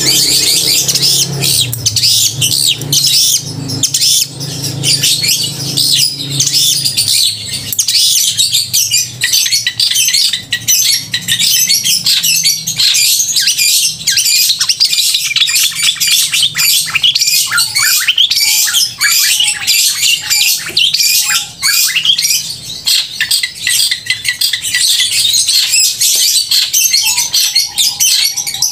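Long-tailed shrike (cendet) singing hard: a loud, fast, unbroken stream of shrill chattering notes, with a few lower whistled notes near the end.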